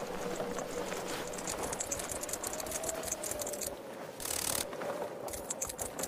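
Rapid, irregular mechanical clicking over a faint steady hum, with a short burst of hiss about four seconds in.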